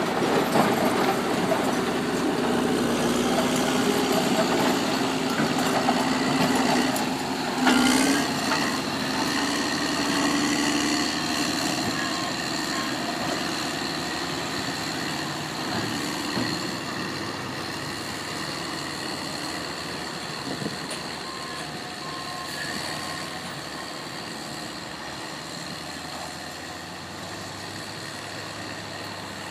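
Diesel engines of heavy earthmoving machinery running steadily at a rock-fill site, with a loud, sudden noise about eight seconds in. The sound slowly fades over the rest of the clip.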